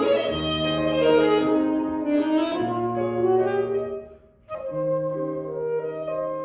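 Saxophone playing a slow classical-style melody in sustained notes over piano accompaniment. The music breaks off briefly about four seconds in, then both resume.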